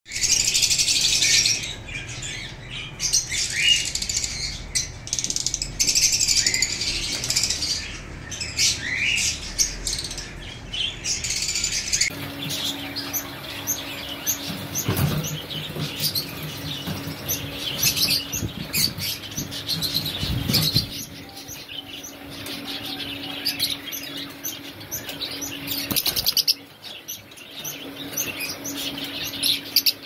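Many lovebirds chirping and chattering in high, rapid calls. After about twelve seconds a steady low hum runs beneath them.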